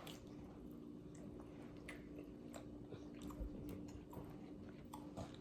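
A person chewing a mouthful of food, faint scattered clicks and smacks of the mouth, over a steady low hum.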